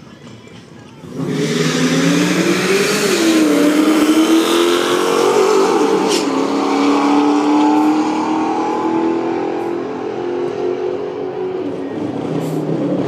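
Two Dodge Hemi V8s, a bolt-on Charger Daytona and a D1-supercharged SRT8, launch at full throttle about a second in and race away down a drag strip. The engines climb in pitch, drop back at two upshifts, and then run on loud and steady as the cars pull away.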